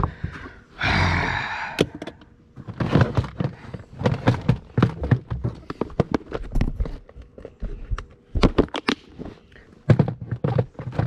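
Fishing gear being handled on a bass boat: a brief rustle, then a run of plastic clicks, taps and thunks as a clear plastic tackle box of lures is moved and a storage hatch in the carpeted deck is opened.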